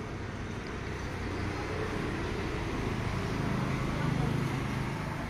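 A motor vehicle's engine running amid road noise, growing louder to a peak about four seconds in and then easing off, like a vehicle passing by.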